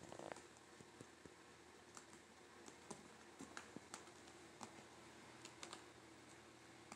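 Near silence, with faint light clicks and taps scattered irregularly through it.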